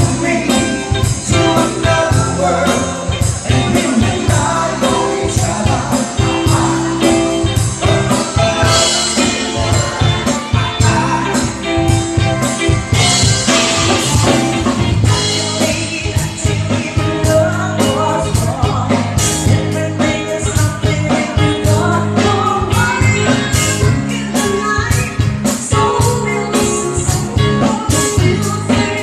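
Live cover band playing a pop-rock song at full volume, with a steady drum-kit beat under singing.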